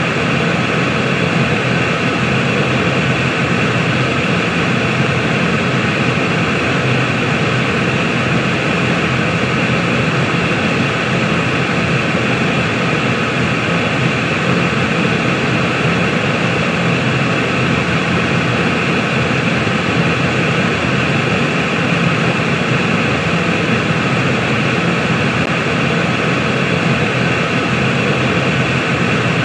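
Steady white noise: a constant, even hiss with no change in level or pitch.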